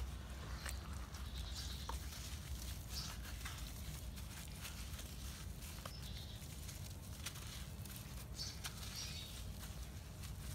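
Hands squeezing and crumbling lumps of dry cement and dirt into wet cement paste: irregular wet squelches with many small crunchy crackles, over a steady low rumble.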